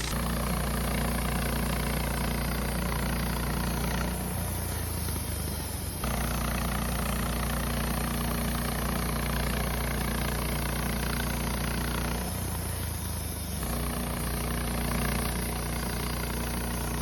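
Wood-Mizer LT15 bandsaw sawmill's engine running steadily through a cut. Its sound changes twice for a second or two, the low hum shifting while the higher noise drops away.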